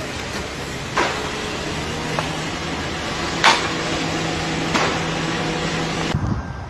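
Construction-site noise: a steady machine hum under three sharp knocks, the loudest about three and a half seconds in.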